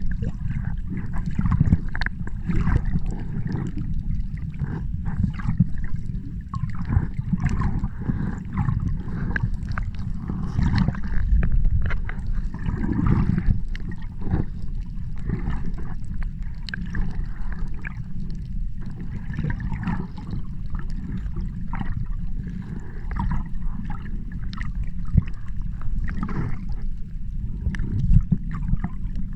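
Sea water sloshing and gurgling over a steady low rumble, with irregular splashy surges throughout.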